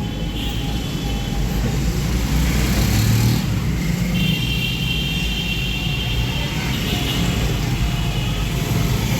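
Street traffic noise: a steady rumble of passing vehicles, with high-pitched horn tones sounding briefly near the start and again for a couple of seconds in the middle.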